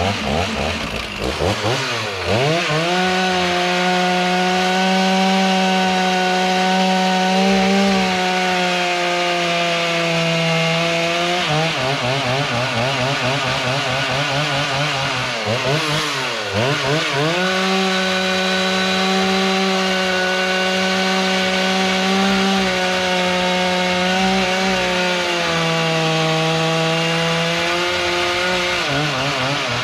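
Two-stroke Stihl chainsaw cutting wood: the engine revs up in the first few seconds and holds a steady high pitch at full throttle. It falls back to idle about twelve seconds in, revs up again a few seconds later, and drops back once more near the end.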